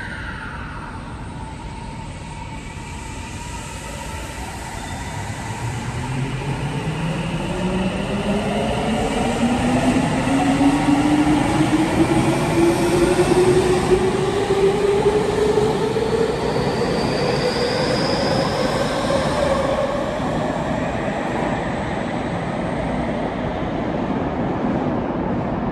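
A Tokyu 3000 series train's Toshiba IGBT-VVVF inverter whines as the train pulls away from an underground station. The whine begins about five seconds in and climbs steadily in pitch as the train accelerates, over the rumble of wheels on rail. The sound grows loud through the middle and eases slightly as the train runs off into the tunnel.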